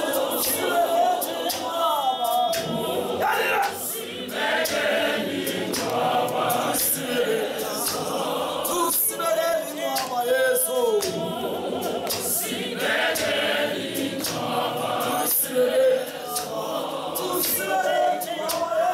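Large mixed choir of men's and women's voices singing a cappella gospel, with sharp beats keeping time through the song.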